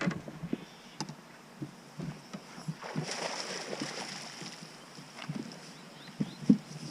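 Scattered knocks and clunks in a fishing boat as a just-landed walleye is handled, with a short rushing hiss about three seconds in and heavier thuds near the end.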